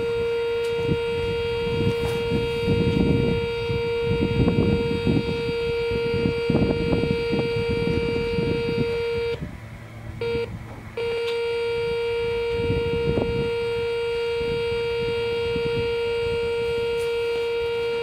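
Sentry 3V8 outdoor warning siren sounding one steady, loud note at full speed, over low rumbling noise. The tone cuts out briefly about halfway through, then comes back.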